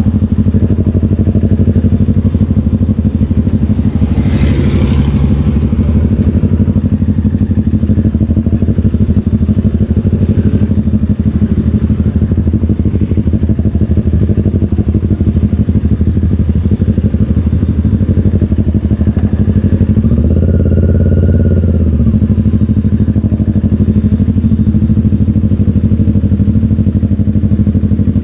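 Motorcycle engine running steadily while being ridden, with a brief hiss about four seconds in and the engine note swelling for a couple of seconds around twenty seconds in.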